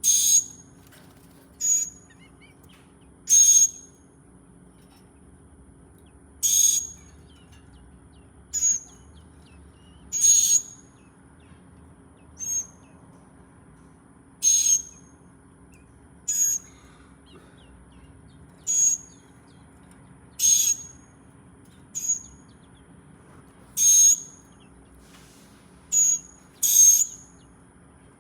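A bird calling with short, sharp, high chirps, one every one to two seconds, over a steady low hum.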